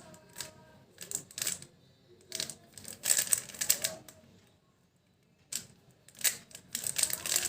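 Plastic twisty puzzle being turned fast by hand, layers clicking and clacking in quick bursts, with a pause of about a second past the middle.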